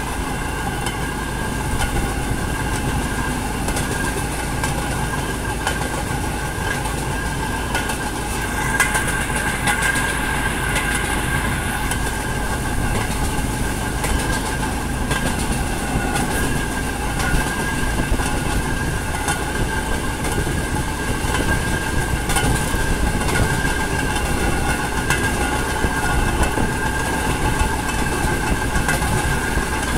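Small open rail vehicle running along narrow-gauge track: steady running noise with a steady high whine and irregular clicks of the wheels over rail joints.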